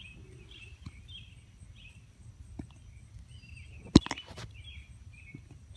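Birds chirping in the background with short, repeated calls, over faint outdoor noise. One sharp knock about four seconds in.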